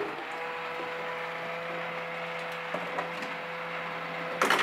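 A steady low electrical hum with a few faint clicks, and a short rustle of plastic ball-pit balls being shifted near the end.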